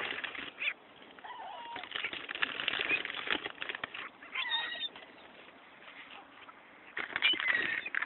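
A flock of gulls calling: a few short, mewing cries that rise and fall in pitch, the clearest about halfway through and more near the end, among the clicks and flaps of the birds moving about.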